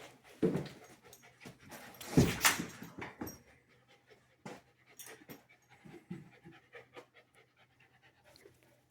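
Husky dogs panting, mixed with scattered short knocks and clicks. A louder burst of noise comes about two seconds in.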